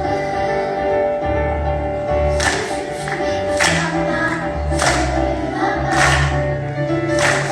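Choir singing polyphonic music over a low, held accompaniment, with bright accents landing roughly every second and a quarter from about two seconds in.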